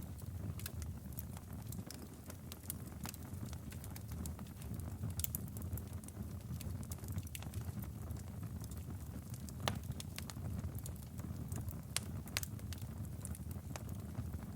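Campfire burning with irregular sharp crackles and pops over a steady low rumble of flames.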